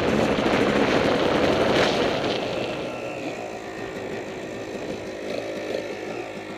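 Dirt bike engine running while riding, loud at first, then easing off about two seconds in as the bike slows and comes to a stop.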